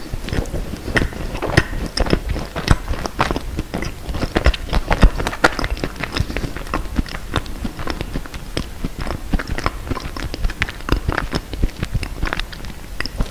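Close-miked chewing of a macaron: a dense run of small, sharp, moist clicks and crunches from the mouth, loudest about five seconds in.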